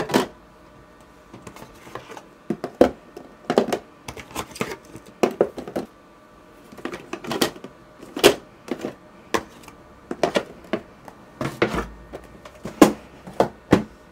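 Paint jars and paint tubes clicking and knocking against the plastic shelf and walls of a small mini fridge as they are packed in, in irregular clusters of sharp taps.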